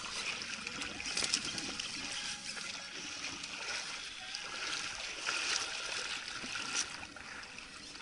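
Water splashing and lapping at the surface near a small boat, with a few short sharp clicks.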